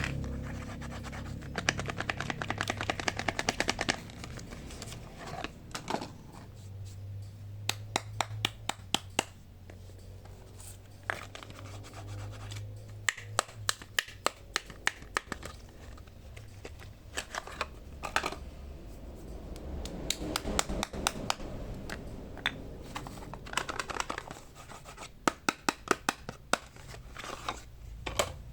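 Bars of soap being unwrapped and handled close to the microphone: scratching and crinkling of wrappers with many sharp clicks and taps, some in quick runs.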